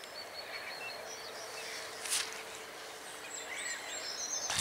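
Birds singing and whistling faintly over quiet open-air ambience, with a brief rustle about two seconds in.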